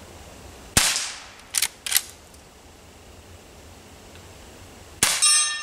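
Two .22 rimfire shots from a Henry H001 lever-action rifle, about four seconds apart. After the first shot come two quick clicks as the lever is worked open and shut. The second shot hits a steel target, which rings on briefly.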